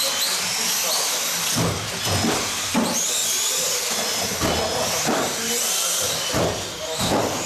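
Several small electric motors of 1/18-scale off-road RC cars racing, their high whines rising and falling with the throttle over a steady hiss of noise.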